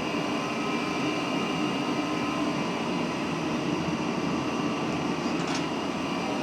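Home-made gas forge's burner running steadily: a constant rushing noise with a low hum under it.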